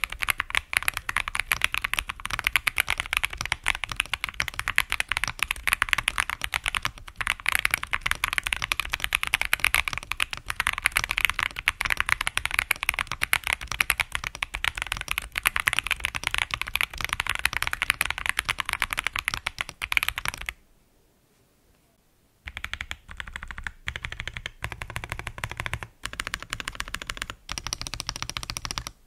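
Modded Akko ACR Pro Alice Plus mechanical keyboard with a polycarbonate plate, Milk Cover Cherry-profile PBT keycaps and lubed, filmed Boba U4T 62g tactile switches, typed on in a fast, dense run of keystrokes. About twenty seconds in the typing stops for a couple of seconds, then resumes as slower, more spaced key presses.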